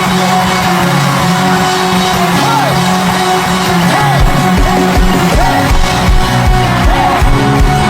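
Live gospel worship band music: held keyboard chords over a drum beat, with voices calling out and singing over it.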